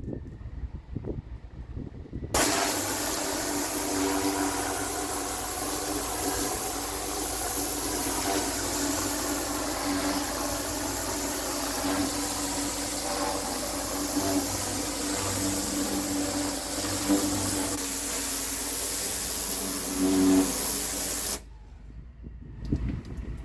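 Pressure washer lance blasting a high-pressure water jet onto imprinted concrete: a steady hiss that starts suddenly about two seconds in and cuts off shortly before the end, with a steady drone underneath.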